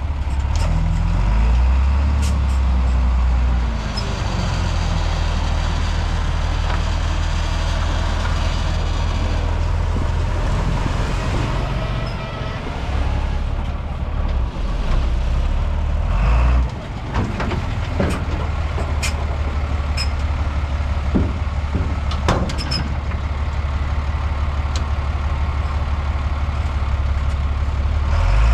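Excavator's diesel engine running under load, its pitch shifting up and down, with a hiss partway through and a few sharp knocks later on.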